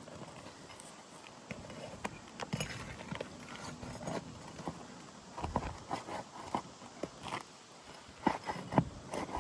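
Irregular taps, knocks and scrapes of hand tools working loose old asphalt shingles and their nails, in scattered clusters that are busiest near the end.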